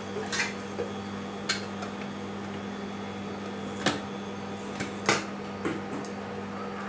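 Whole spices frying gently in oil in a steel pressure cooker, a faint steady sizzle over a low hum. A few sharp clicks and knocks come through, the loudest about five seconds in.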